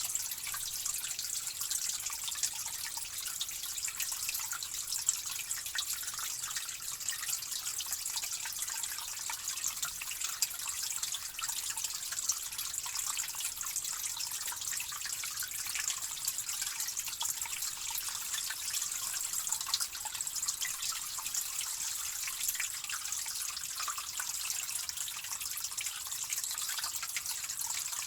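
Water trickling and dripping steadily, a dense patter of small drops and splashes with little low end.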